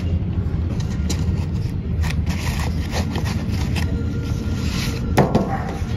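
A puppy nosing and scrabbling in a plastic tub of soil: scraping and rustling now and then, loudest about five seconds in, over a steady low rumble.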